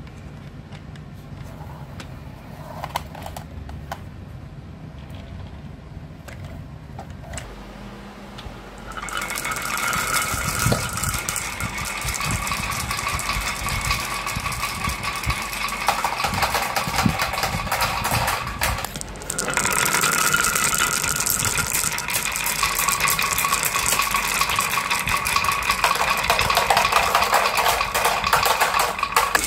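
Many glass marbles rolling and clattering down carved wooden slope tracks: a dense, continuous rattle that starts about a third of the way in, with a brief break about two-thirds of the way through. Before it, only a few faint clicks.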